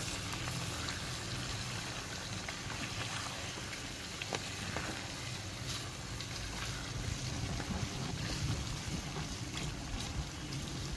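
Chicken pieces sizzling steadily in hot oil in a karahi, stirred and turned with a wooden spatula that knocks lightly against the pan a few times; the chicken is at the frying stage where it is cooked until it turns white.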